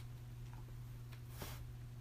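Faint handling of trading cards as packs are gone through: a light click at the start and a soft swish of a card sliding about a second and a half in, over a steady low electrical hum.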